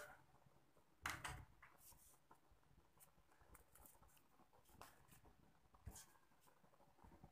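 Faint clinks and knocks of plates and utensils being handled and stacked at a kitchen sink while washing up, the loudest knock about a second in.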